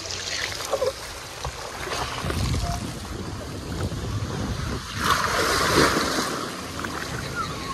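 Water rushing and a rumble as a rider slides down a water-park slide, then a loud splash into the pool about five seconds in.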